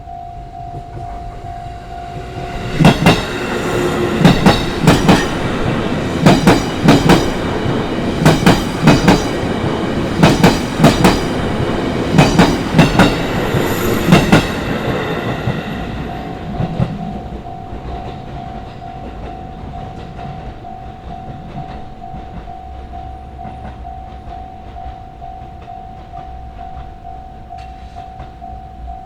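A JR Itsukaichi Line electric train crosses a level crossing. Its wheels knock over the rail joints in a long run of paired clacks for about twelve seconds, over a steady rumble. The level-crossing warning bell rings in a steady tone before the train arrives, is covered while it passes, and is heard again as the train fades.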